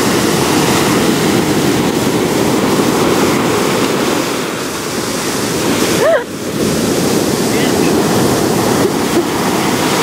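Ocean surf breaking and washing up a sandy beach: a loud, continuous rush of waves and foam.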